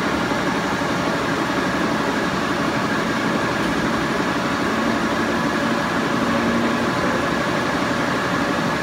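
76-inch Bullard vertical turret lathe running with its large table spinning at speed: a steady mechanical drive hum with a faint steady whine.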